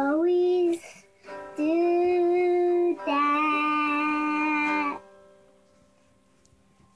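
A young girl singing three long held notes, accompanied by a strummed semi-hollow electric guitar. The song stops about five seconds in, leaving only faint room sound.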